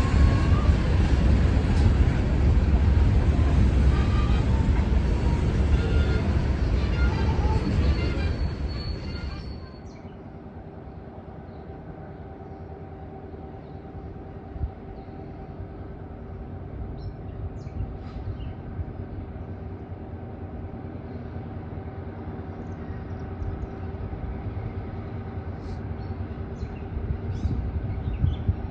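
Train passing close by: loud, continuous rumble of wheels on rail. About nine and a half seconds in the sound drops abruptly to a much quieter steady hum with a few faint clicks.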